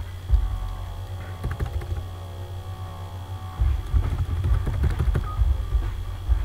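Laptop keyboard typing and clicks over a low rumble, with the keystrokes getting busier about three and a half seconds in.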